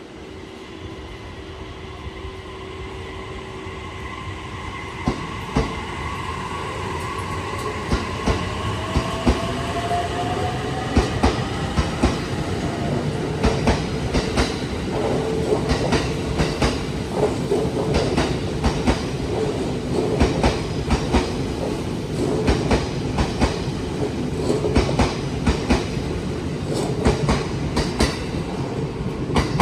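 A train approaching and running past, growing louder over the first ten seconds, with a rising whine. From about ten seconds in its wheels clatter over the rail joints in a steady rhythm.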